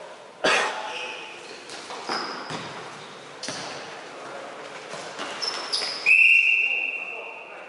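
A ball thudding several times in an echoing hall amid voices, then one long, steady whistle blast starting about six seconds in.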